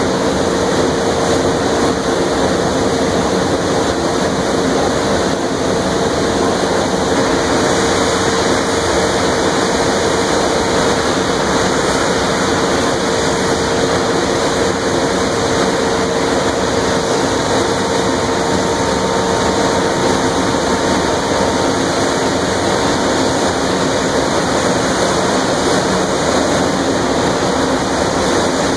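Steady loud rushing roar of an industrial sugarcane ethanol mill, with a constant mid-pitched hum running through it and no breaks or impacts.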